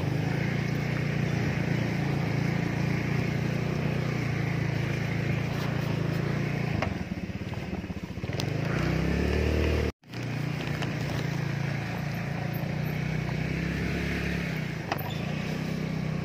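Small motorcycle engine running under load on a rough dirt track. About eight seconds in it eases off and revs back up. The sound drops out for an instant about ten seconds in.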